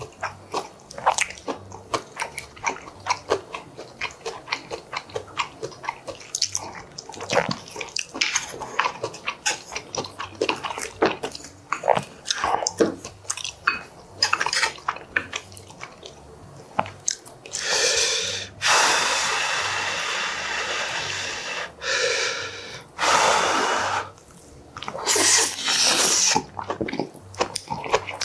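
Close-miked eating sounds of kimchi and pork stew: wet chewing and smacking, with chopsticks and a wooden spoon clicking against bowls. Past the middle, several longer loud noisy stretches of a second or more stand out.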